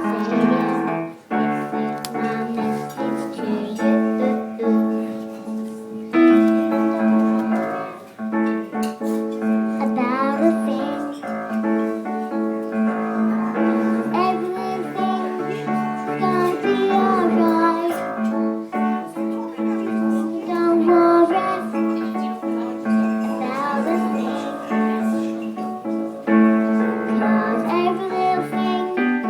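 A solo voice singing with piano accompaniment.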